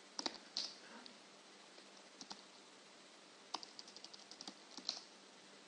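Faint computer keyboard typing. Three quick keystrokes come right at the start and a pair just after two seconds in. Then comes a fast run of about ten keystrokes from about three and a half seconds in, the last one near five seconds a little louder, as a short command and then a password are typed.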